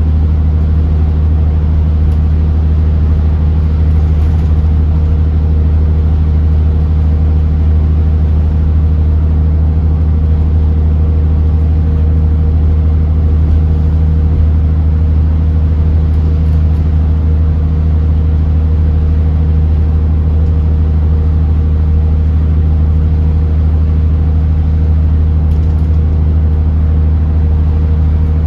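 Engine and road noise heard from inside an Alexander Dennis Enviro400 double-decker bus cruising at a steady speed. It is a loud, constant low drone with no change in pitch.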